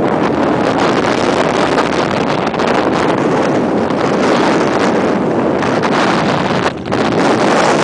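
Strong wind buffeting the microphone: a loud, steady rushing roar with a brief lull near the end.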